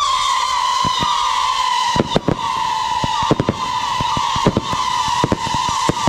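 Fireworks going off: a loud continuous whistle starts suddenly, dips slightly in pitch and then holds steady, with irregular sharp cracks and bangs throughout.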